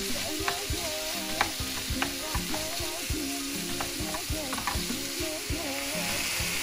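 Minced meat and onions sizzling in a nonstick frying pan while a wooden spatula stirs and scrapes through them. Irregular knocks, a few each second, come from the spatula against the pan.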